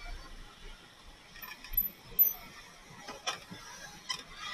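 Scooter ridden slowly over a rough road: a few sharp rattling clicks, loudest about two seconds in, over faint road noise.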